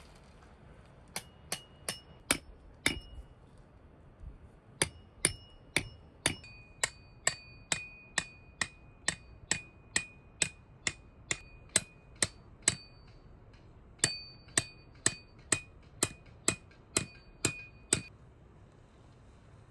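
Hammer striking a metal tent peg in three runs of steady blows, about two a second, each blow giving a short metallic ring.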